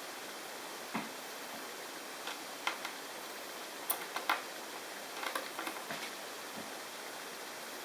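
Scattered light clicks and taps of a small screwdriver and tiny screws being taken out of a laptop screen's mounting, a few in quick clusters around the middle, over a steady faint hiss.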